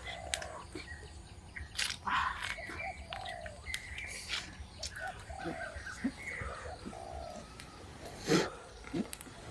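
Birds chirping and calling, with a few sharp knocks, the loudest a little over eight seconds in.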